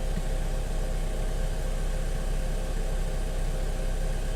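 Steady low drone of an idling engine, with a faint steady tone running through it.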